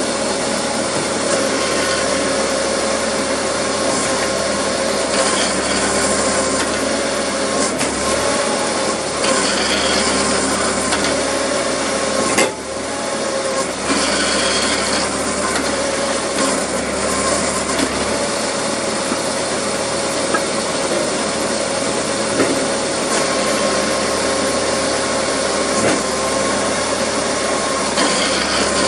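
Homemade PTO-driven hydraulic wood splitter running under load: the tractor's power take-off, geared up to drive a single-stage hydraulic pump at high speed, gives a steady mechanical whine while the splitter's ram works through oak rounds.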